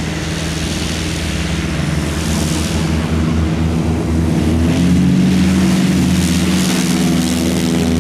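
Piston engines of a formation of light propeller aircraft running at high power, growing louder, with the engine note rising slightly about five seconds in.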